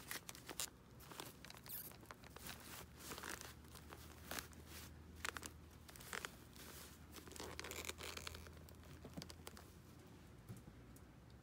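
Faint rustling of a doll's fabric dress and light knocks and clicks as the 50 cm doll is handled and settled onto a digital scale. The rustles and clicks come irregularly and thin out near the end.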